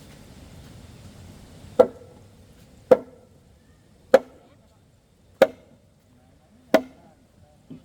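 Five sharp chopping blows into wood, evenly spaced about one every 1.2 seconds, each with a brief ring.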